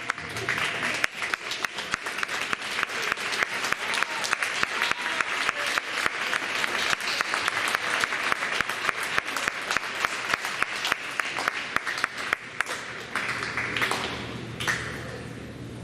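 Audience applauding in a school hall: many people clapping steadily, thinning out and dying away about thirteen to fifteen seconds in.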